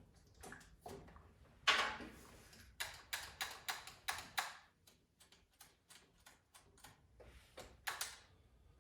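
Small hand tools and metal and plastic parts clicking and tapping during reassembly of a Stihl MS251C chainsaw's carburetor. One sharp knock about two seconds in, a quick run of clicks at about three a second, and a few more clicks near the end.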